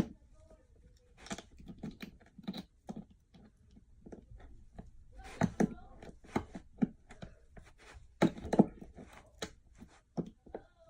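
Irregular clicks, taps and small knocks of hand tools working on the chair seat, typical of staples being pried and pulled out of the upholstery.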